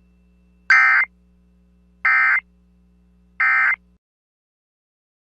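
Emergency Alert System end-of-message data bursts: three short, buzzy digital tone bursts about a second and a half apart, the code that marks the end of the alert.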